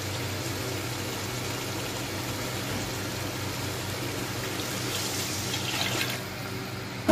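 Chicken masala sizzling in an aluminium pot, with a glass of water poured in from about four and a half seconds in. The pour stops suddenly at about six seconds.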